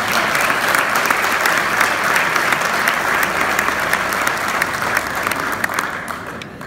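Audience applauding at the end of a song: dense clapping that thins and fades out near the end.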